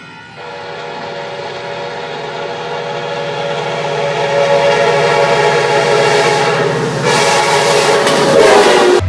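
Train horn sounding one long, continuous blast that grows steadily louder as the train approaches, with the rush of the passing train rising under it and the horn's pitch dropping slightly near the end as it goes by.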